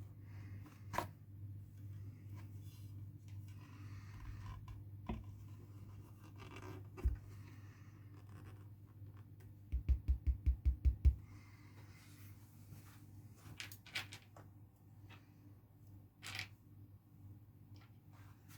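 Hands working on a speaker during reassembly: scattered scrapes, rustles and clicks, with a quick run of about eight low knocks near the middle. A steady low hum runs underneath.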